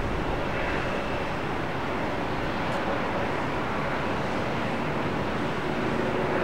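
Jet airliner engines running, a steady rush of noise with a few faint whining tones over a fluctuating low rumble.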